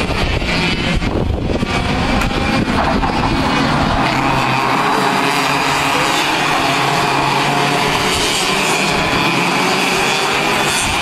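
Several KF2 racing karts' 125cc two-stroke engines running hard together as a pack passes, a dense, steady, overlapping whine that thickens about four seconds in.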